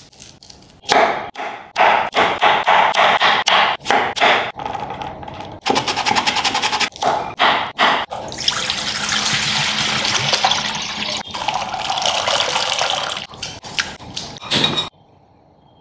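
Knife strokes on an end-grain wooden chopping board, a run of sharp chops with a quick fast burst about six seconds in. Then, past the halfway mark, a steady wet swishing as a hand stirs green peas in a stainless-steel bowl of water, ending shortly before the end.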